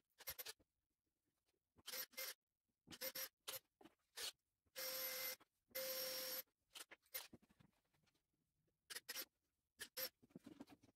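Makita 18V cordless drill-driver running into plywood in short trigger bursts, with two longer runs of steady motor whine about halfway through, among light clicks and handling knocks.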